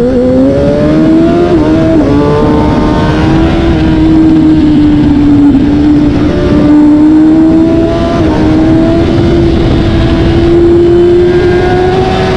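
2021 Kawasaki ZX-10R superbike's inline-four engine at full throttle, pulling hard with rising revs and shifting up from second to fifth gear, each upshift a brief dip in pitch. Heard onboard over a steady rush of wind.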